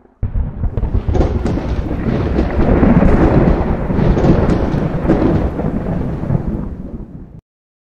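Thunder-like rumble from a logo-intro sound effect, dense with crackles. It starts suddenly, swells through the middle, then dies down and cuts off abruptly near the end.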